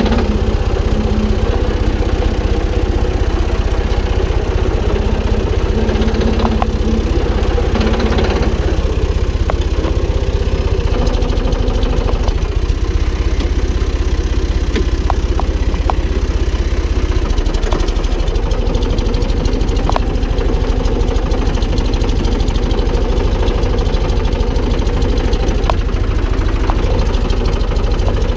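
Valtra BF-75 tractor's diesel engine running steadily as the tractor is driven, with a few light clicks and knocks over it; the engine note shifts about 11 seconds in and again about 17 seconds in.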